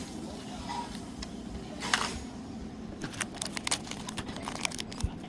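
Small plastic miniature pieces and their packaging being handled: a brief rustle about two seconds in, then a quick run of light clicks and rattles.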